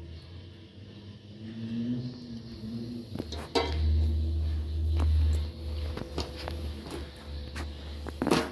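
Metal ladle and large aluminium cooking pot being handled, with several sharp clinks of metal on metal and a low rumble about halfway through.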